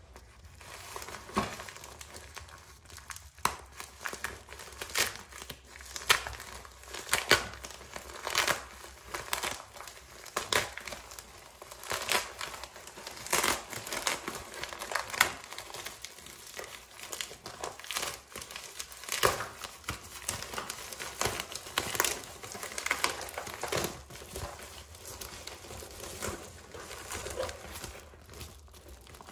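A plastic bubble mailer being handled and pulled open by hand: irregular crinkling of the plastic and bubble-wrap lining, with many short, sharp crackles.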